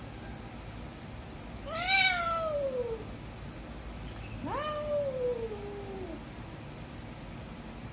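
Domestic cat meowing twice, two long drawn-out meows, each rising quickly and then sliding down in pitch; the first is the louder.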